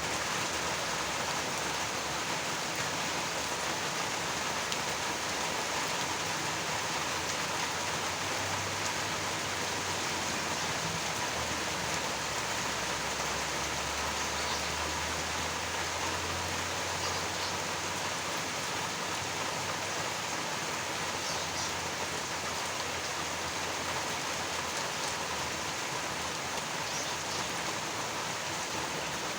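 Steady rain falling, an even hiss of many drops, with a low rumble for several seconds in the middle.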